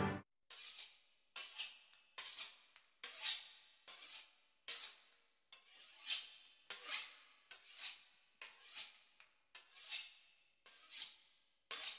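A knife sawing back and forth through the crisp pastry crust of a beef Wellington, in a steady rhythm of about two scraping strokes a second.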